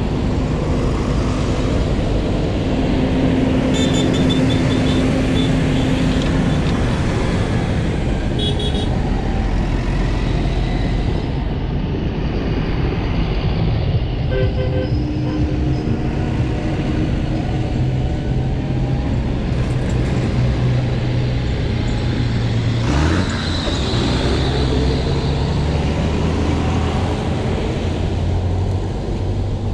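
Farm tractors, among them green John Deere tractors, driving past one after another on a tarmac lane, their diesel engines running steadily and the engine note shifting as each one passes, with tyre noise on the road.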